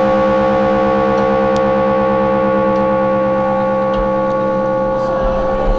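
A loud, steady electronic drone: several tones held together as one unchanging synthesizer chord, the show's opening sting played over the sound system.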